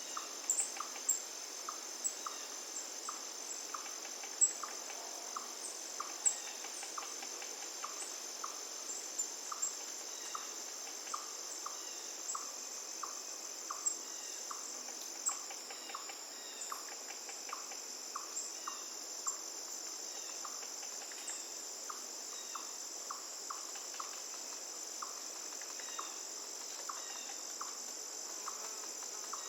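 Steady, high-pitched trilling of insects, crickets or similar, with a short note repeated about twice a second and scattered brief high chirps over it.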